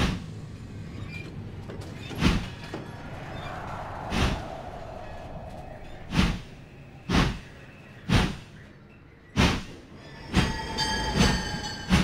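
Sound-designed rhythm of heavy thumps, like a steam locomotive starting to chug. They come about one every two seconds at first and quicken to more than one a second. In the last couple of seconds a high, squealing metallic ringing joins the thumps.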